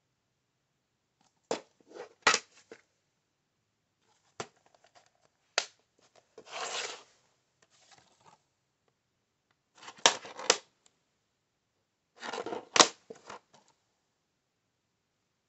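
Plastic DVD cases clacking and rustling as they are handled and swapped. Four short clusters of sharp clicks, with a brief scraping swish just before the middle.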